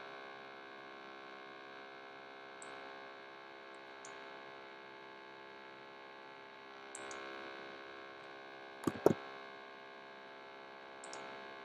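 Steady electrical mains hum with many overtones, with a quick pair of sharp computer-mouse clicks, a double click, about nine seconds in, and a few faint ticks scattered through.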